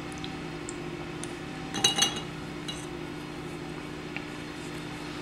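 Colored pencils clinking together as the dark brown one is picked out, a brief cluster of clicks about two seconds in, with a few lighter ticks around it. A steady low hum runs underneath.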